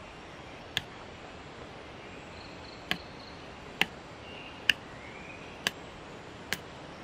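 Machete blade chopping into an upright wooden stick: six sharp knocks, roughly one a second.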